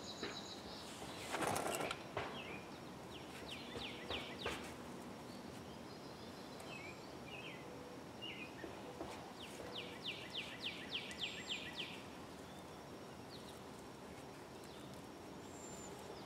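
Faint outdoor background with birds chirping: scattered short calls and a quick trill of about ten repeated falling notes around ten to twelve seconds in. There is a brief rustling noise about a second and a half in.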